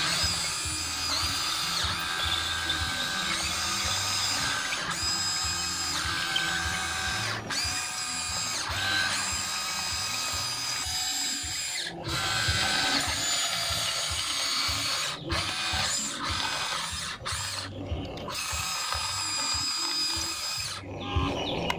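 Huina 1594 RC excavator's small electric motors and gearboxes whining as it drives its tracks and works the boom and bucket. The whine shifts pitch as different functions are run and cuts out briefly several times.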